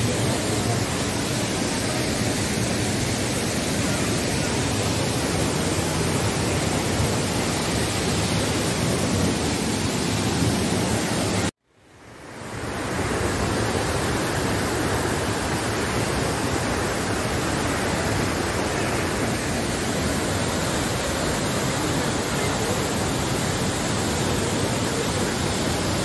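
Steady rush of the Kapila Theertham waterfall in heavy flow, with floodwater running fast down a stone channel. A little before halfway the sound cuts out abruptly and swells back within about a second.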